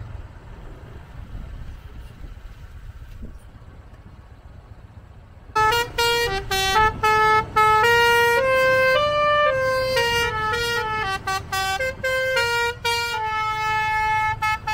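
Basuri, a bus's multi-trumpet musical air horn, playing a quick melody of clear stepped notes that starts about a third of the way in. Before it there is only the low rumble of the coach's engine.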